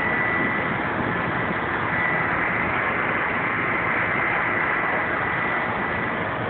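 Steady rushing noise of the outdoor thunderstorm, with no distinct events, and a faint thin high tone held through most of it.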